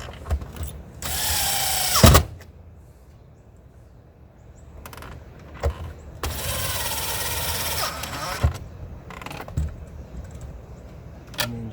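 Power drill driving screws in, running in two spells of a second or two, each followed by a sharp click. Smaller handling knocks fall between the runs.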